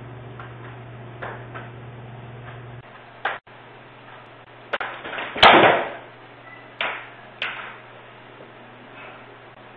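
Aluminium crutches knocking on a concrete garage floor, then a loud crash about five and a half seconds in as a man on crutches falls, followed by two more knocks of the crutches hitting the floor. Heard through a security camera's microphone, which makes it thin and tinny.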